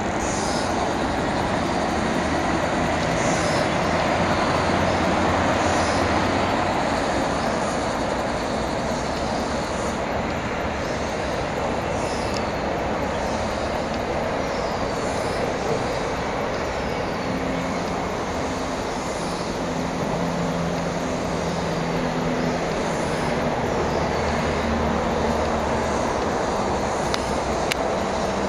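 Steady rumble of distant road traffic, with a low engine-like hum rising in the second half. Faint high, falling chirps repeat every second or two above it.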